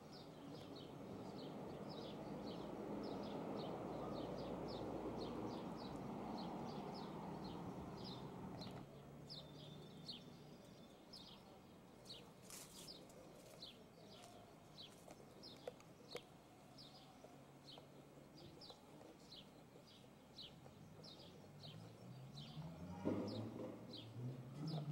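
Steady high chirping, a short chirp about twice a second and very regular. Over the first several seconds there is a faint low rushing noise, and a child's voice comes near the end.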